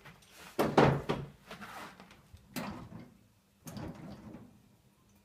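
A run of knocks and scraping clunks from metal engine parts being worked loose and handled during a 2CV engine stripdown, loudest about a second in, then more single knocks over a faint steady hum.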